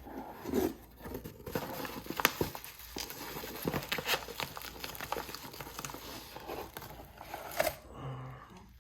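Cardboard and packing material being handled as a knife box is opened and unpacked: crinkling and rustling, broken by many sharp clicks and taps.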